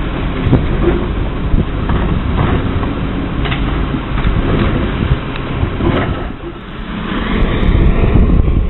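Low, steady rumble of road vehicles: a Crane Carrier side-loader garbage truck driving off and the car it is filmed from, with scattered knocks. A louder rushing swell comes near the end.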